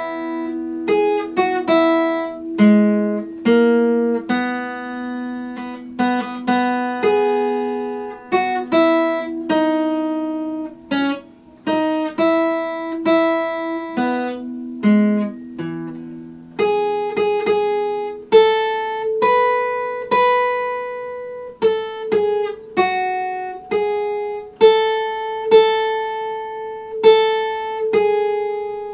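Epiphone acoustic guitar played solo, picked note by note: a slow melody ringing over held bass notes.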